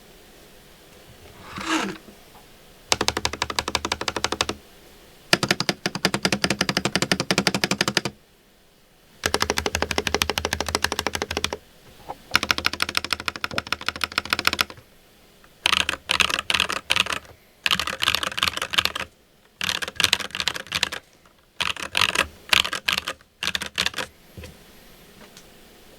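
Fast typing on a custom mechanical keyboard with Akko V3 Creamy Yellow Pro linear switches and PBT keycaps, in bursts of rapid keystrokes with short pauses between them. The bursts get shorter and choppier in the second half. A brief falling swoosh comes just before the typing starts.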